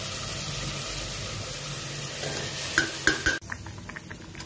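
Onion-tomato masala sizzling as it fries in an aluminium pressure-cooker pot while a ladle stirs it, with a few sharp clacks of the ladle against the pot. About three and a half seconds in, the sizzle cuts off to a quieter stretch with light ticks.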